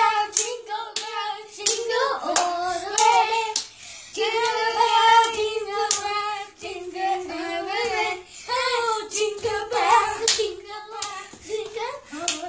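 Children singing a short jingle together, with sharp hand claps through the song.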